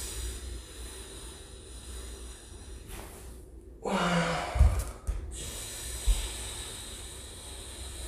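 A man breathing hard and hissing through his nose while exercising, with a short voiced exhale about four seconds in. A couple of dull low thumps follow, from bare feet landing on a wooden floor during the kick and step-over.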